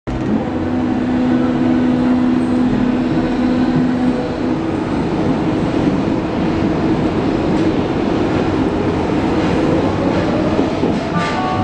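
Berlin U-Bahn A3L92 small-profile train pulling out of a station, with steady running noise and motor tones. About eight seconds in, a whine from the traction motors rises in pitch as the train picks up speed.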